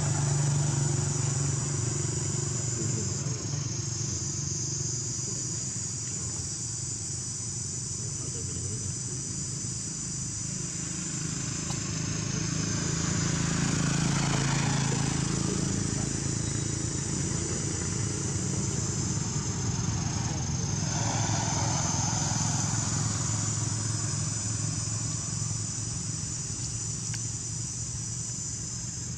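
Steady high-pitched insect drone over a low engine rumble that swells about halfway through.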